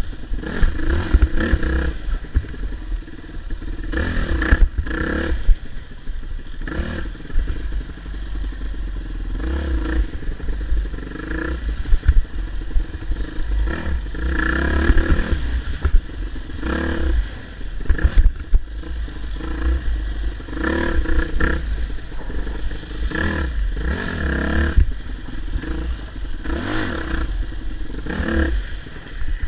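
Dirt bike engine being ridden hard, revving up and falling back every second or two as the throttle is worked, over a heavy low rumble, with a few sharp knocks.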